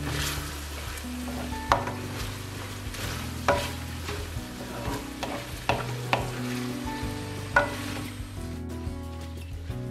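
A wooden spoon stirs ground beef, onions and peppers frying in oil in a shallow metal saç pan, over a steady sizzle. About five times the spoon knocks on the pan and the metal rings briefly. This is the 'tantun' knock of the spoon on the pan that gives tantuni its name.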